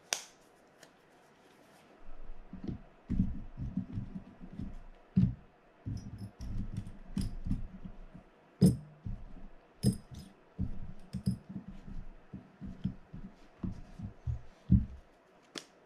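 Hands working on a Penn Senator 113H fishing reel on the bench: an irregular run of soft knocks and rubbing from handling the parts, with a few sharp metallic clinks.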